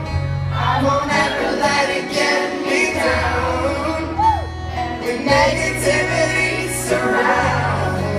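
Live band music from an acoustic set: voices singing over instruments, with sustained low bass notes.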